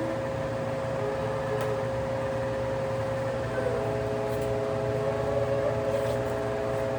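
Electric desk fans running steadily: a constant motor hum with a few steady whining tones and the rush of air.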